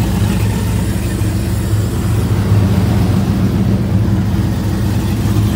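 Car engine idling steadily shortly after a cold start, run to check for lifter noise.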